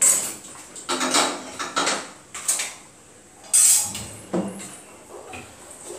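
Stainless-steel cookware being handled: about half a dozen clanks and clatters as steel pans and a ladle are picked up, knocked together and set down, most of them in the first four and a half seconds.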